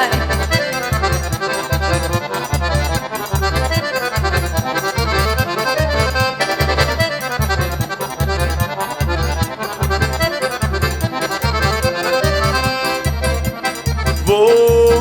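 Instrumental forró pé de serra: an accordion plays a quick melody over a steady low zabumba drum beat. A long held accordion note comes in near the end.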